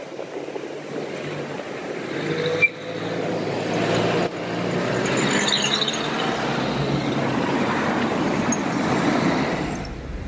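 Town street traffic: cars passing close by, with engine hum and tyre noise on the road, growing louder about two seconds in and easing off near the end.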